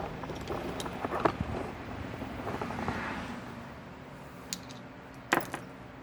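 A few scattered clicks and knocks from handling tools or parts, loudest about a second in and again near the end, over a faint steady hum.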